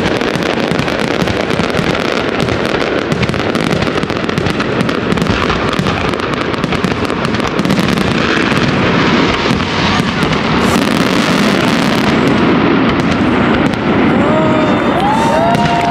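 Fireworks crackling and popping densely and without pause over a continuous rumble, as in a show's finale. Near the end a few tones start, each rising and then holding steady.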